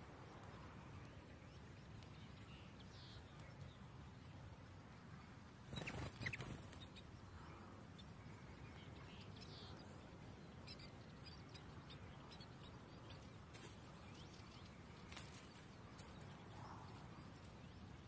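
Faint, scattered high squeaks of common linnet nestlings begging at the nest, with a brief louder burst of noise about six seconds in.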